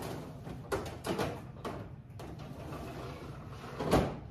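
Refrigerator being opened and searched: several short knocks and rustles, with the loudest thump about four seconds in.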